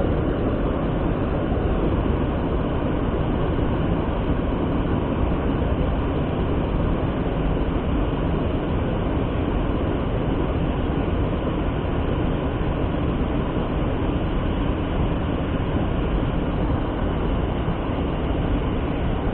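Steady, unbroken rushing noise, strongest in the low range, with no clear rhythm or separate events.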